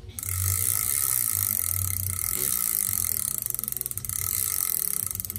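Large spinning reel being cranked by hand: the gears and rotor run with a steady whir and a faint whine, starting a moment in.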